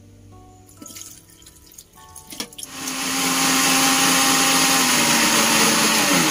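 Electric countertop blender starts about two and a half seconds in, just after a click, and runs steadily at full speed. It is puréeing onion, ginger and garlic with a little water into a smooth paste.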